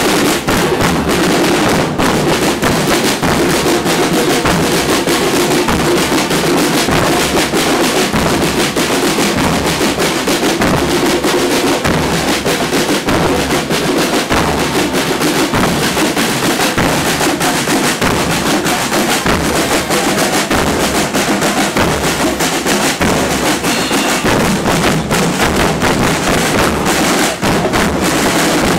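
Carnival troupe drumming: bass drums and snare-type drums playing a dense, continuous, loud beat with rolls.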